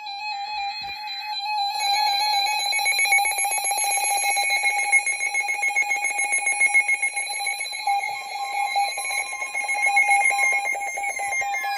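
Emergency Alert System attention signal: a loud, steady, harsh alarm tone that thickens and pulses about two seconds in, following a brief burst of alert data at the start. It announces an incoming severe thunderstorm warning. Near the end, falling pitch sweeps slide in over it.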